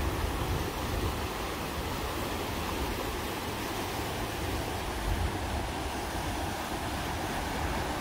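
Shallow river rushing steadily over a rocky bed through small rapids, with some wind rumble on the microphone.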